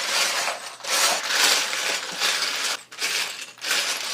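Loose Lego bricks clattering and rattling in repeated swells as a hand rummages through a pile of pieces, searching for a particular one.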